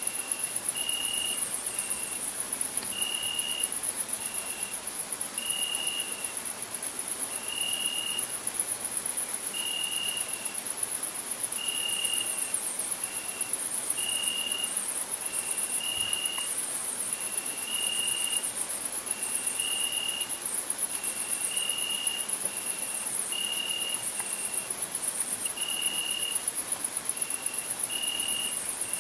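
Crickets singing: a dense, very high-pitched, rapidly pulsing trill runs without a break, while a lower cricket gives short clear notes at one pitch about once a second, often in long-short pairs.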